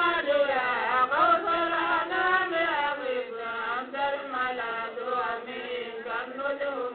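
Voice chanting an Arabic devotional poem in praise of the Prophet Muhammad, the refrain drawn out in long, winding melismatic phrases.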